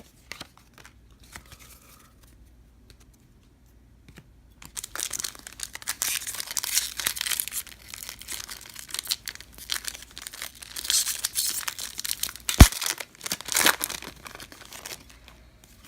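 A 1998 Fleer Ultra baseball card pack being torn open, its wrapper crinkling and tearing in a long run of crackles, with one sharp snap near the end.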